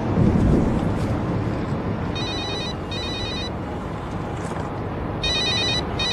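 Electronic telephone ringing in a double-ring cadence: two short trilling rings about two seconds in, then two more near the end, over a steady low outdoor rumble.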